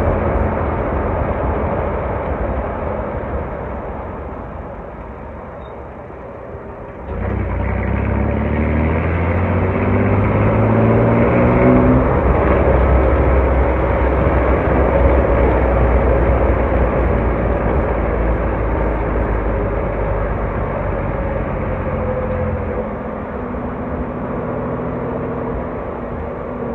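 Chevrolet Blazer DLX's 4.3 Vortec V6 engine running, its sound tapering off over the first several seconds. About seven seconds in, the throttle opens sharply and the engine note climbs steadily for several seconds, then holds an even drone before easing off near the end.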